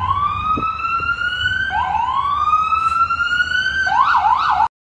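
Emergency vehicle siren sounding a rising wail that repeats about every two seconds, switching near the end to a fast yelp, then cutting off suddenly. A low rumble runs underneath.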